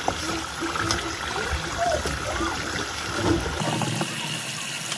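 Samosas deep-frying in hot oil in a saucepan, the oil sizzling and bubbling steadily around them.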